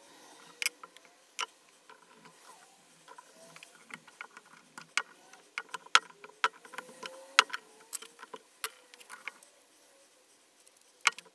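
Irregular sharp clicks and taps of small metal nuts, washers and threaded rods being fitted into resin-and-wood clamp jaws by hand.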